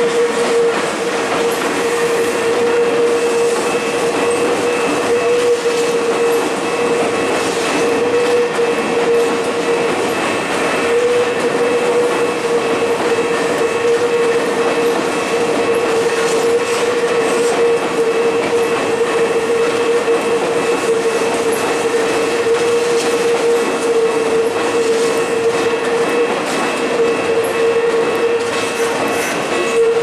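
Tokyu 5050-series electric train rolling slowly through a level crossing, its wheels clicking and clacking over the rails. A steady high tone runs under the rumble without a break.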